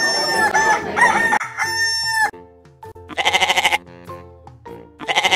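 Rooster crowing, ending in one long held note a little over two seconds in. Then a goat bleats twice in wavering calls, the second near the end.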